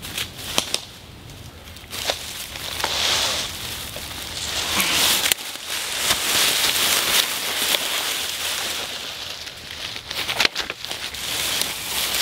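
Footsteps crunching through deep dry leaf litter, with a long dead branch rustling and scraping through the leaves as it is handled, and a few sharp cracks of twigs.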